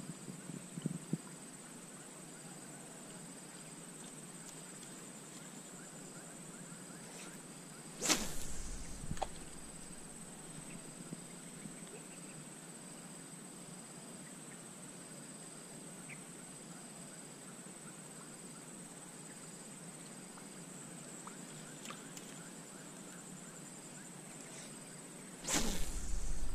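Two swishing whooshes of a spinning rod being cast, about eight seconds in and again near the end. Between them a steady high insect drone with a faint, evenly pulsing chirp.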